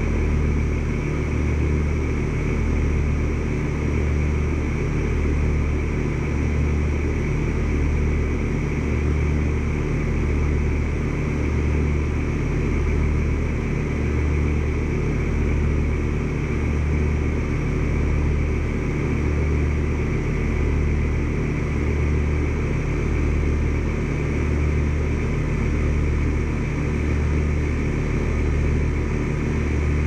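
Carrier Comfort heat pump outdoor unit running: a steady low hum with a slow, regular swell about once a second, over an even fan-like whoosh.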